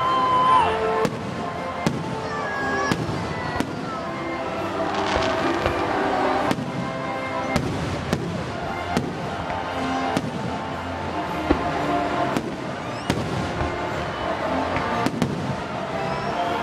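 Aerial fireworks shells bursting in a continuing series of sharp bangs, roughly one a second at uneven intervals.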